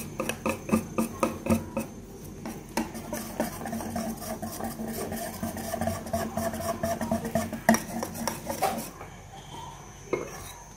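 Wire balloon whisk beating a smooth, thick frying batter in a ceramic bowl, its wires clicking against the bowl in quick, rhythmic strokes. The whisking quietens near the end.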